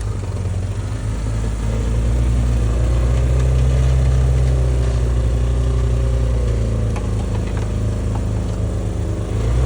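Vehicle engine running steadily at raised revs. Its drone climbs a little about two seconds in, then holds.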